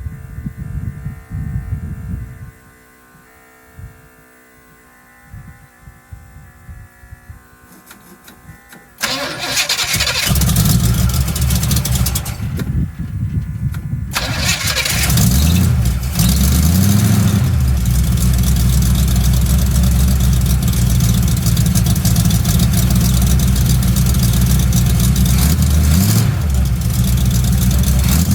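A Chevy truck's mild-cam 454 V8 with a dual 3-inch exhaust of glass packs and Flowmaster Super 10 mufflers starts about nine seconds in and catches loudly. It is revved a few times soon after, then settles into steady running, back in running order after a rocker-arm repair.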